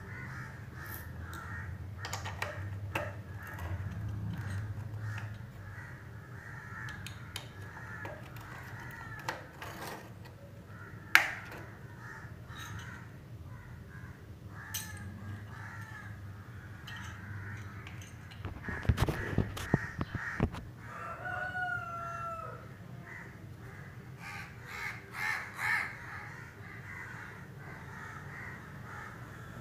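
Birds calling continuously in the background, with one clear pitched call a little past the middle. Scattered sharp clicks and light knocks from a small circuit board and cable being handled, with a short cluster of knocks about two-thirds of the way through.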